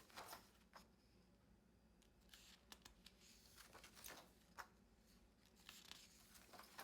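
Near silence with faint, scattered flicks and rustles of paper planner pages being turned.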